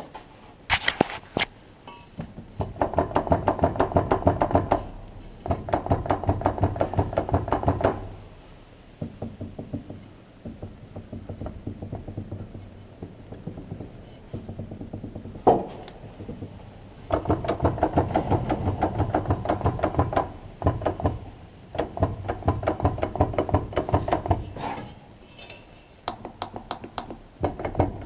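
VAZ 2104 (Lada) drivetrain knocking: rapid, evenly spaced knocks, several a second, coming in bursts of a few seconds over the steady running sound. The source is somewhere in the driveshaft, rear axle or transmission, and the owner does not know the cause.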